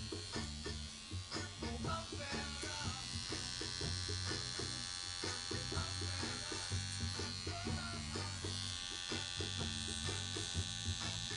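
Electric tattoo machine buzzing steadily as it lines a tattoo, fitted with a 9 round liner needle. Background music with low bass notes plays underneath.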